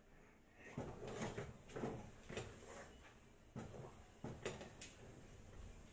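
Wooden paddle stirring and beating thick finger-millet dhido in a steel pot, scraping and slapping against the pot in irregular strokes about twice a second, starting about a second in.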